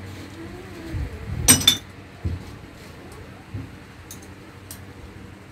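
Metal tools and parts clinking and knocking on a bare engine block during crankshaft assembly. One sharp, ringing metal clink comes about a second and a half in, with a few softer knocks and light ticks around it.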